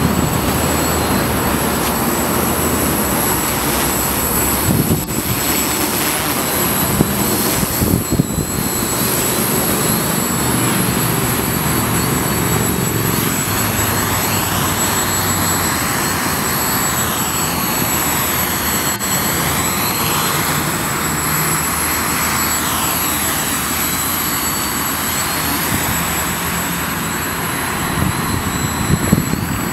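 Small quadcopter's electric motors and propellers buzzing steadily as it hovers low over the ground, holding height on sonar altitude hold, with a whooshing tone that sweeps up and down through the middle stretch.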